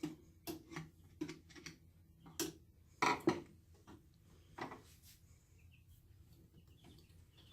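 Scattered clicks and knocks of tools and metal parts being handled on an antique Singer treadle sewing machine during oiling and adjustment. The loudest is a pair of knocks about three seconds in.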